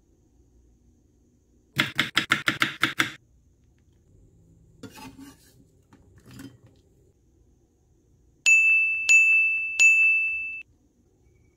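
A knife slicing jalapeño peppers on a wooden cutting board, about nine quick strokes in a second and a half, followed by a few faint knocks. Near the end come three high, bell-like dings in quick succession, each ringing on until the next.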